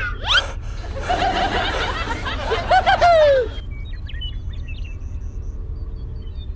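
Cartoon sound effects: a quick rising whoosh, then a high-pitched snickering laugh lasting about three seconds that cuts off abruptly, followed by faint short chirps.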